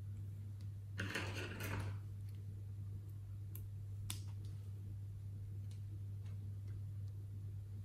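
Plastic piping bag crinkling as it is handled about a second in, then sharp snips of scissors cutting off the bag's tip around the middle, followed by a few faint clicks. A steady low hum runs underneath.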